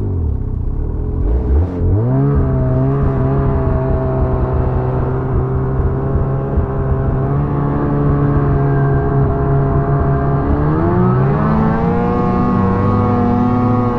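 Ski-Doo snowmobile engine under way in deep snow. Its revs dip low and pick back up about two seconds in, hold steady, then rise again about eleven seconds in as it heads up a slope.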